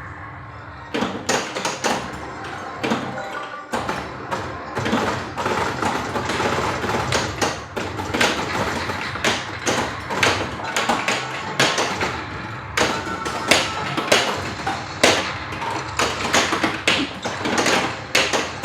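Bally Safe Cracker pinball machine in play: the ball, flippers and targets make irregular clacks and thuds over the machine's own music.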